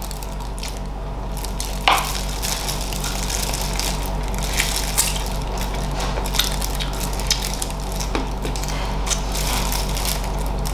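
Close mouth sounds of someone biting and chewing boiled chicken feet in Thai-style sauce, a string of short crunches and clicks from the crunchy skin, the loudest about two seconds in. A steady low hum runs underneath.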